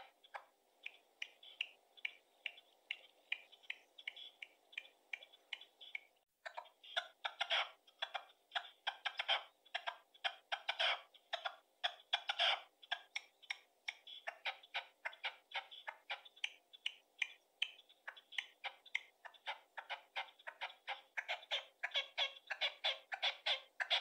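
Red-legged partridge calling: a long series of short, rhythmic chuckling notes, about three or four a second, broken briefly about six seconds in.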